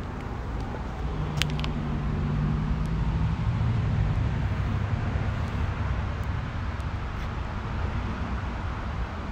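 Motor vehicle traffic noise: a low engine hum swells to its loudest midway and drops slightly in pitch, over a steady background rumble, with a faint click about a second and a half in.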